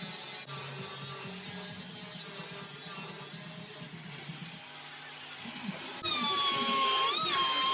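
Hand scraping or rubbing on metal parts, then about six seconds in a small high-speed power tool starts with a high whine that dips in pitch twice as it takes load.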